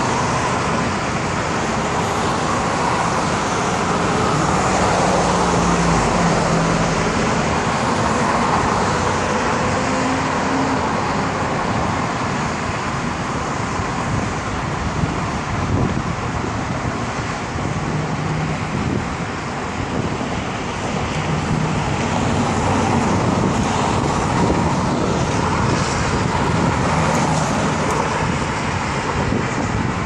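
Road traffic noise: cars driving past on the road, a steady wash of tyres and engines with individual passing engines rising and fading now and then.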